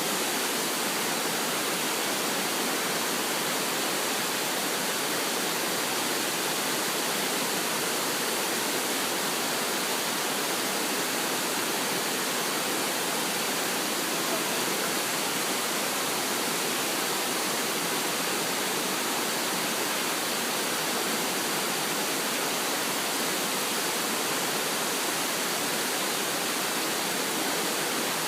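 Waterfall rushing: a steady, unchanging hiss of falling water.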